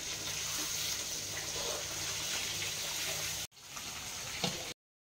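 Chicken leg pieces frying in hot oil in a pan, a steady sizzle that cuts off abruptly about three and a half seconds in, followed by a fainter stretch with a single click.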